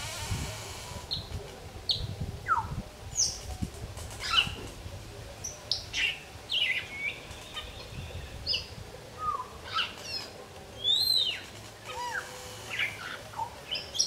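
Wild African grey parrots calling in their evening chorus: a run of short whistles, some sweeping sharply up and some sharply down, about one or two a second.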